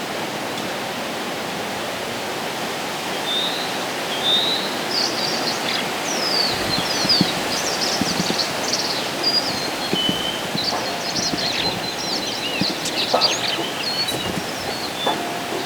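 Steady wind rushing through the trees, with small songbirds chirping in quick, high, gliding notes from about three seconds in.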